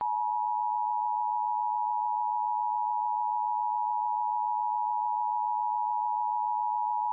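Emergency alert attention tone: one steady electronic tone near 1 kHz that starts abruptly and holds at an even level. It signals that an emergency warning broadcast is about to follow.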